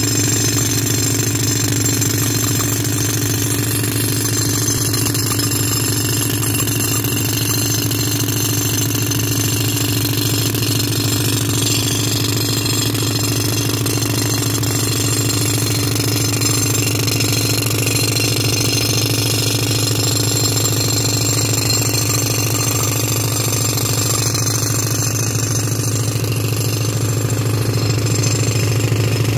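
Pneumatic rock drill hammering steadily into rock, with the tractor-driven air compressor that feeds it humming underneath.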